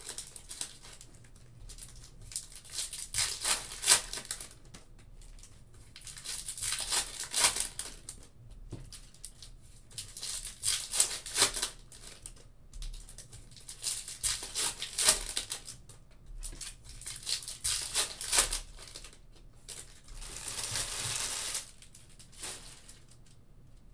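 Foil Topps Chrome trading-card pack wrappers crinkling and tearing open, and stacks of cards clicking as they are flicked through by hand, in repeated bursts every few seconds.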